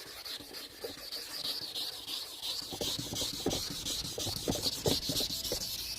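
Wet sanding pad (coarse green side) rubbed back and forth over a plastic headlight lens, a steady scratchy hiss swelling with each stroke as it sands the oxidised, hazy surface off.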